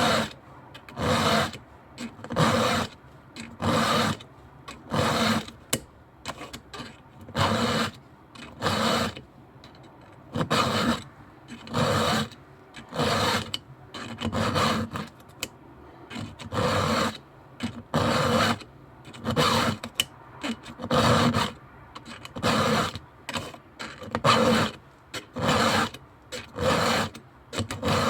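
A file rasping across a chainsaw chain's cutters during sharpening, in about twenty even strokes, roughly one every second or so.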